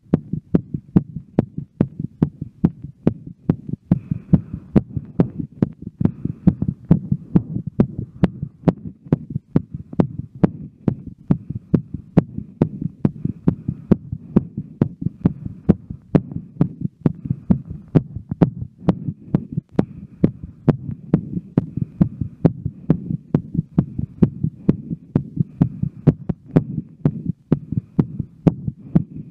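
A woman's heartbeat, fast after a workout: a quick, regular run of sharp beats over a low, steady rumble.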